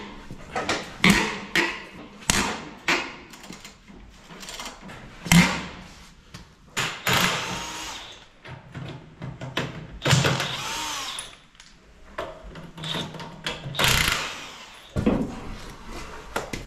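Cordless impact wrench undoing a tractor's rear wheel nuts in short runs, among sharp knocks and clanks of tools and the heavy wheel being handled.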